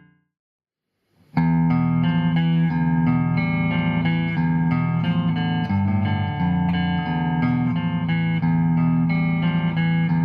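Electric guitar played through a Hughes & Kettner Tubemeister 18 valve amp head with EL84 power tubes and 12AX7 preamp tubes, a repeating riff starting suddenly after about a second of silence.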